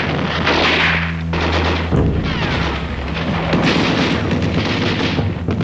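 Battle sound of dense gunfire and booming explosions, shots cracking in quick irregular succession, over a steady low drone.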